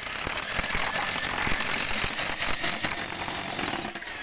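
Handheld electric power tool running hard against the trench floor, a dense rattling noise over a steady high whine, cutting off abruptly about four seconds in.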